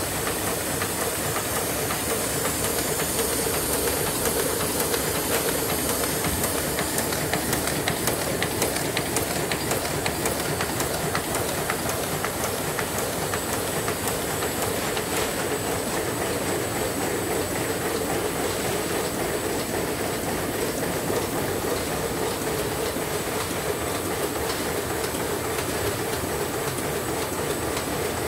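Five-colour Heidelberg Speedmaster SM 52 sheetfed offset press running: a steady, fast mechanical clatter with a constant hiss.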